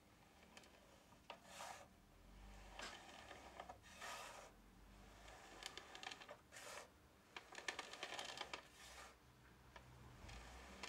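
Faint, irregular scraping and light clicks as a model-locomotive boiler on its round base is turned by hand on a wooden workbench, with more of them in the second half.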